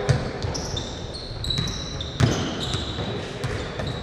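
Basketball bouncing on a hardwood court, with two loud thuds about two seconds apart and softer bounces between them. Sneakers squeak sharply and briefly against the floor throughout.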